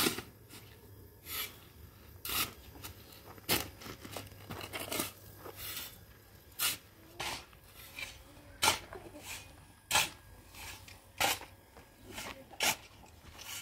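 Repeated short scraping strokes, roughly one every second or so, some louder than others.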